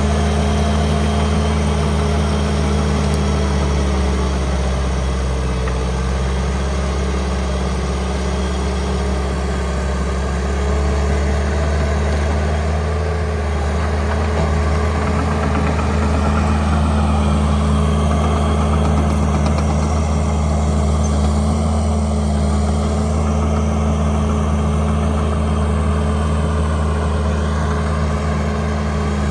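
An engine running steadily at an even speed, with a deep, constant hum.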